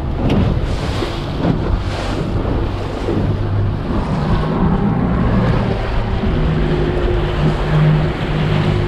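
A Sea Hunt BX 22 BR's outboard engine running steadily with a low hum as the boat trolls, while the wake rushes along the hull and wind buffets the microphone.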